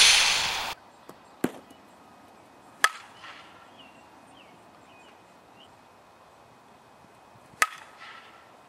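Softball bat hitting front-tossed balls: three sharp cracks, the second and third with a short ring, a second or several apart. A loud rush of noise cuts off under a second in.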